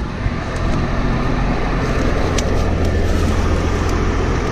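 Diesel engine of a tracked forestry machine running steadily close by, a constant low drone, with a few light clicks over it.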